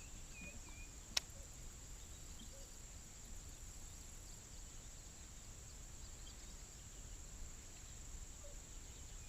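Faint, steady high-pitched drone of insects, with a short bird chirp near the start and one sharp click about a second in.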